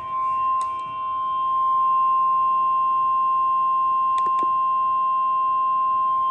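Emergency alert attention signal: a single steady high tone, the weather-radio warning alarm tone, with a couple of faint clicks. It marks the start of a new severe thunderstorm warning.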